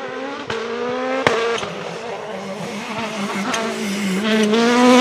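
Hyundai i20 rally car's turbocharged four-cylinder engine running hard under acceleration, its pitch climbing slowly, with a few sharp cracks along the way.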